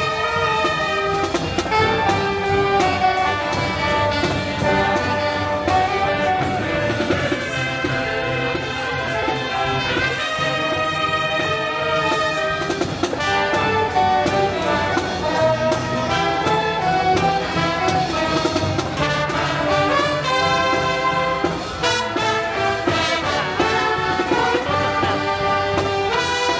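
Brass-led music, trumpets and trombones playing a melody over a steady beat.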